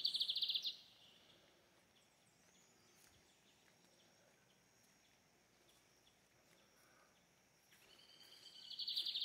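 A high, buzzy animal trill made of rapid pulses, heard briefly at the start and building up again near the end, with faint outdoor quiet in between.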